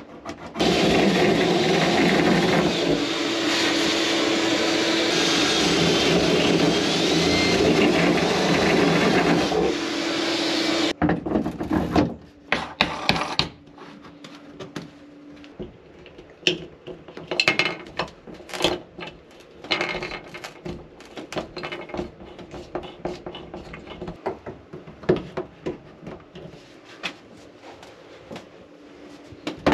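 Power drill running steadily for about ten seconds, drilling the mounting hole through the shower wall for a hand shower. After it stops come scattered light clicks and knocks of plastic fittings being handled and fitted.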